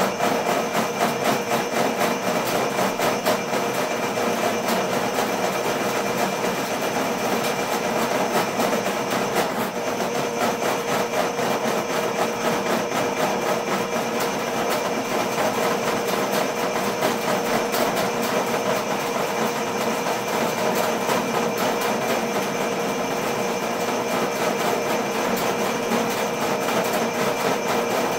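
Ridgid K-50 sectional drain machine running steadily, its electric motor humming under a fast rattle from the spinning cable as it is fed into a floor drain blocked by roots.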